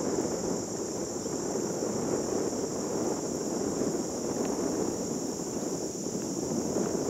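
A steady, unbroken high-pitched insect chorus, with a low, even rushing noise beneath it.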